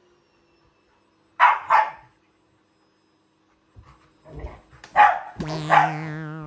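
Dogs barking at a vacuum cleaner: two quick barks about a second and a half in, then a burst of several barks near the end. Over the last barks a steady humming tone starts suddenly and slowly fades.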